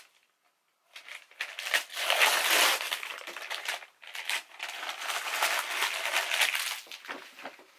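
Gift-wrapping paper crinkling and rustling as a wrapped present is torn open and handled, starting about a second in.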